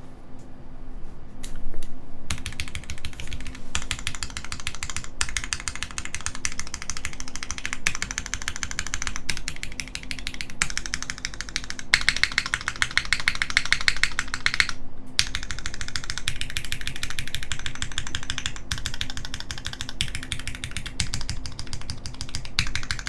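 Fast typing on a mechanical keyboard: lubed, retooled Cherry MX Black linear switches on an aluminum plate in a friction-fit o-ring mount, with GMK keycaps, giving dense rapid key clacks. The typing starts about two seconds in and pauses briefly about two-thirds of the way through.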